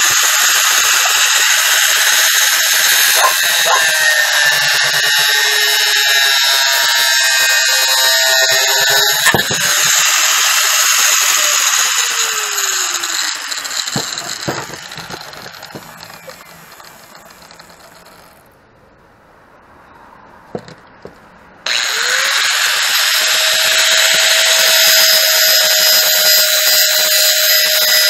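Angle grinder grinding metal on a go-kart exhaust part for several seconds, then released and spinning down with a falling whine. After a few quiet seconds with light clicks, it is switched on again suddenly and runs steadily.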